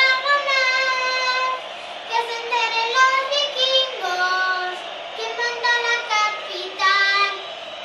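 Young children singing a song, with long held notes that step from one pitch to the next.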